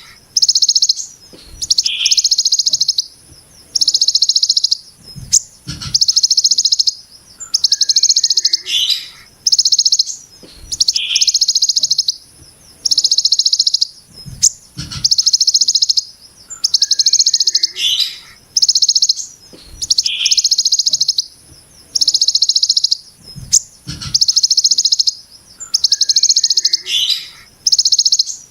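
Kolibri ninja (konin) sunbird singing the harsh, rapid 'brem' rattle of the ciblek gunung (hill prinia). Dense, high buzzing rattles about a second long repeat every second and a half or so, with short falling chirps between them.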